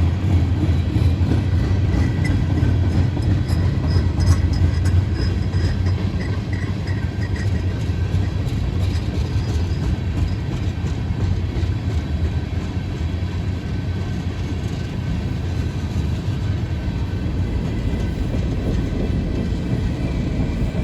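Train passing on the rails: a steady low rumble, with faint high-pitched squeals and light clicks in the first several seconds.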